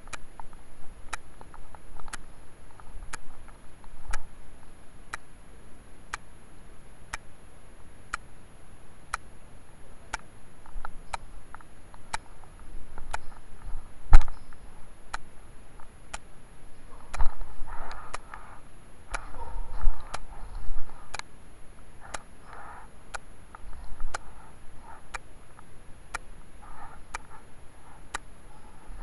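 Regular ticks about once a second over a steady hiss, with one loud thump about halfway and muffled, indistinct sounds several times in the second half.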